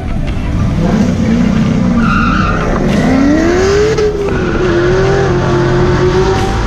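LQ4 6.0-litre V8 in a 1981 Camaro Z28 pulling away from a stop, heard from inside the cabin. The revs climb and peak about four seconds in, drop at a gear change, then the engine pulls steadily at lower revs.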